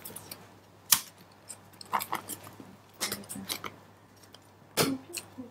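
Handling noise around a training manikin's head: a scatter of short clicks and knocks with rustling between, the sharpest click about a second in and another near the end.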